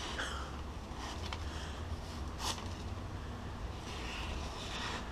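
Carbon-steel Mora knife blade being stropped on a leather strop with stropping compound: a few soft swishing strokes a second or two apart, the edge trailing, the final honing stage after the diamond stones.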